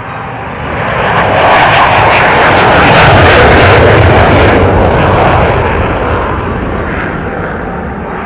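Jet fighter fly-by, an F-16's engine noise: a loud rushing roar swells in over about two seconds, peaks near the middle, then slowly fades as the jet passes.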